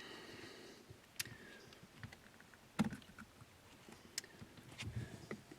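A few light, scattered clicks and taps as a stainless steel cover is worked over a car's brake pedal.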